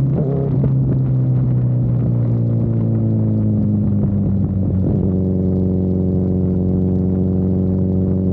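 Honda CB1000R's inline-four engine running on the move, its note slowly falling for about five seconds, then settling into a steady drone.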